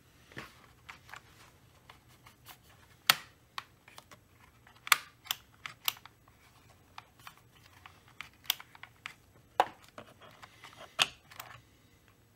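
Irregular light clicks and knocks, a dozen or more, with a few sharper ones, from small chainsaw parts and tools being handled during disassembly.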